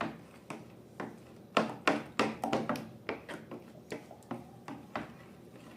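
Slime being worked by hand, making a run of sticky popping clicks, densest and loudest about two seconds in.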